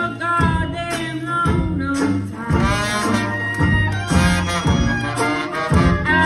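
Traditional New Orleans jazz band playing live: brass and reed melody lines over a sousaphone bass line and a steady beat of about two strokes a second.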